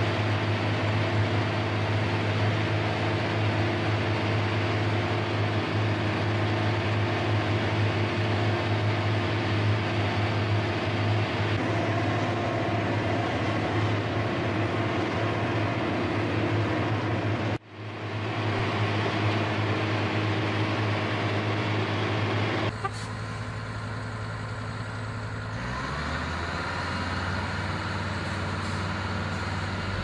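Engines of heavy concrete-paving machinery running steadily with a constant low hum. The sound drops out for an instant about two-thirds of the way through and changes abruptly a few seconds later, as one machine gives way to another.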